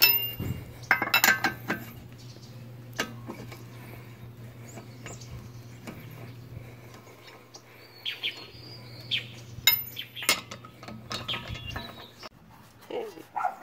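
Metal tools and brake parts clinking and clanking, in scattered knocks, over a low steady hum that stops near the end.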